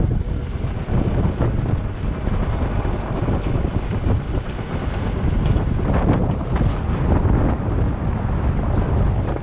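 Backhoe's diesel engine running steadily, with wind rumbling on the microphone.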